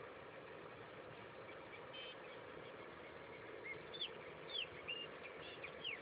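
A bird calling: a quick series of short, sharp, downward-curving chirps in the second half, over a steady low hum.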